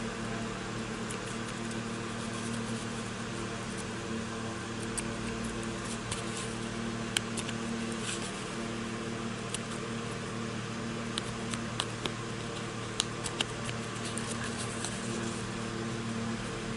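Small detail scissors trimming felt along the edge of a cardboard cutout: a scattering of short, crisp snips, most between about five and fifteen seconds in, over a steady background hum.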